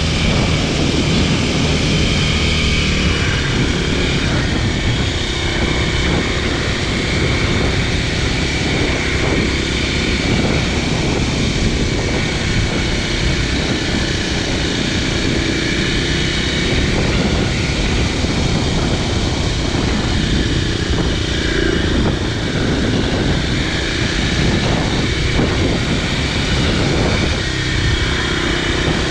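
Kawasaki KLX300SM supermoto's single-cylinder four-stroke engine running at a steady cruise, holding an even loudness with no hard revving.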